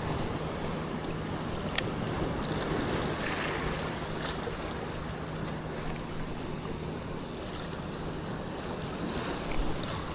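Steady wind on the microphone over moving water, with a faint low hum and a single sharp click about two seconds in.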